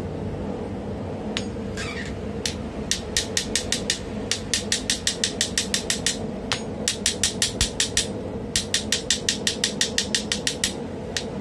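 Hand hammer striking a steel hammer-head blank held in tongs on a small anvil. The blows come quickly, about four a second, in runs of one to two seconds with short pauses between them. They start about two and a half seconds in.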